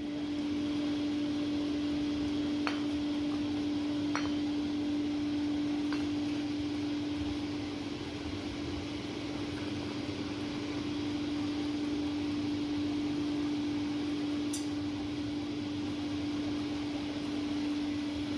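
A steady, single-pitch machine hum over a background of workshop noise, with a few faint clicks.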